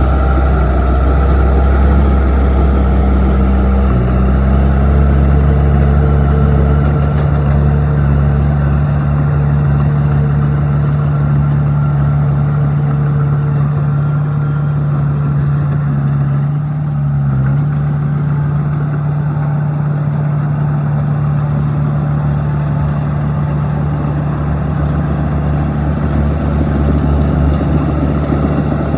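Bulldozer's diesel engine running steadily at a low, even note, its pitch shifting slightly twice as it works.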